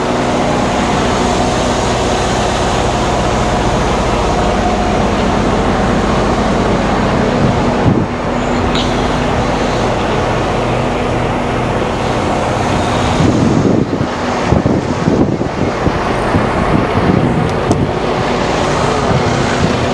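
Semi truck's diesel engine idling steadily. About two-thirds in, louder uneven noise joins it.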